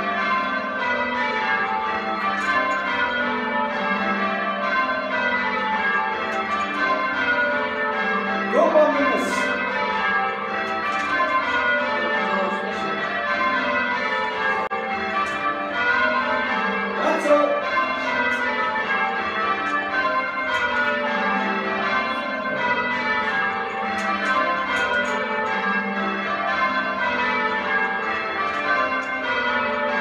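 Cork Cathedral's ring of twelve church bells, old-fashioned sounding, with a 27-0-20 tenor in C, being rung in rounds. The bells strike one after another in the same descending order, row after row.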